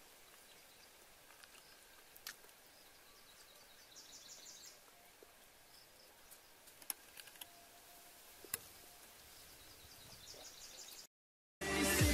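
Faint woodland ambience with a high, rapidly pulsing trill twice and a few sharp clicks. It cuts out briefly, then loud music starts just before the end.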